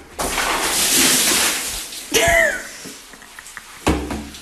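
A bucket of dirty mop water poured onto a person below, a heavy splashing rush lasting about two seconds. It is followed by a short startled cry, and a thump near the end.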